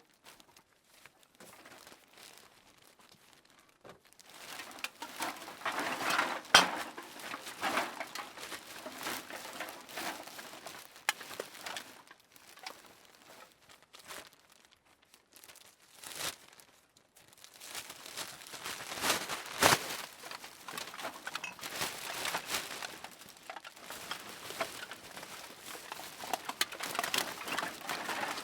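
Aluminium can handled and knocked about: bouts of dense, irregular clicks and clatter, with quieter gaps between.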